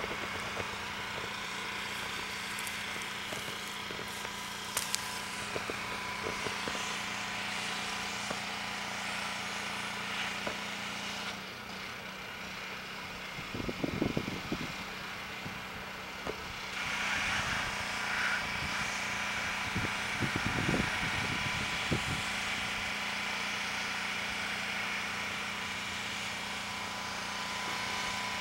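Pressure washer running steadily with a constant hum, easing off for a few seconds midway and then picking back up. A few short close knocks are heard over it.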